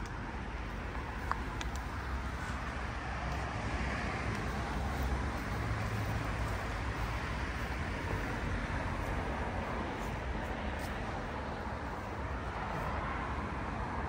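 Road traffic noise: a steady deep rumble of cars that swells gently twice, once around the middle and again near the end.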